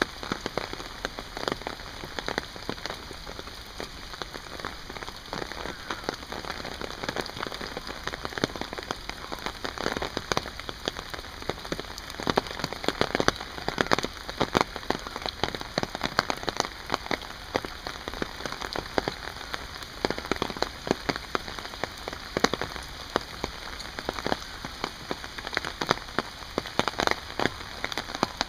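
Steady rain falling on a garden pond, wet stones and foliage, with many sharp close raindrop taps over an even hiss.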